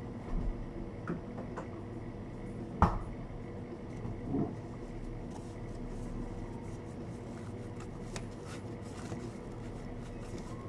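Steady hum of kitchen equipment with a few light knocks and clicks from plastic containers and food being handled at a sushi counter. One sharp click about three seconds in is the loudest sound.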